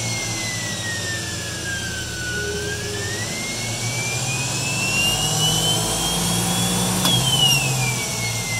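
Separately excited DC traction motor of a 1982 Unique Mobility Electrek, running on its repaired original controller and revving as the throttle is worked by hand. Its whine sinks for about two seconds, climbs steadily to a peak about seven seconds in, then falls again, over a low hum.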